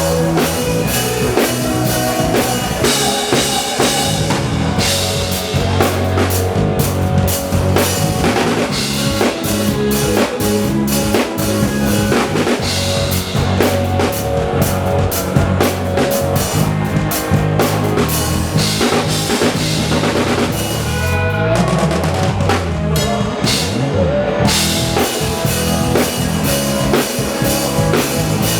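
Live band playing a song through a PA, picked up by the camera microphone, with a drum kit keeping a steady beat under bass and guitar. A wavering, sliding instrument line comes in briefly about three quarters of the way through.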